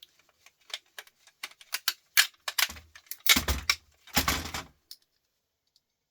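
Small metal and plastic parts clicking and clattering as a CD changer is taken apart by hand. Two louder rattling knocks come about three and four seconds in.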